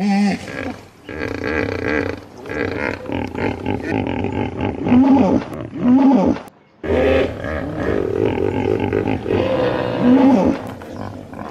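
Hippopotamus calling: a series of deep, pitched grunts and honks, with the loudest rising-and-falling calls about five, six and ten seconds in.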